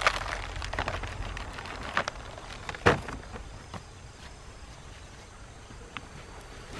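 Handling noise of a farmer kneeling in dry tilled soil: soft rustling and scuffing with a few sharp knocks, the loudest about three seconds in. A paper bag is set down on the soil in this span, and the rest gets quieter after the loudest knock.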